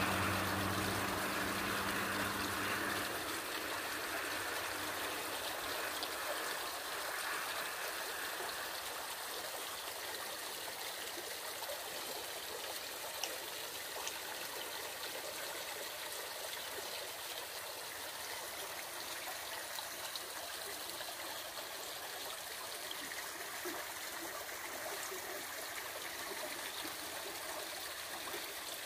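River water running steadily over stones, a continuous even rushing. A low engine hum fades away in the first few seconds.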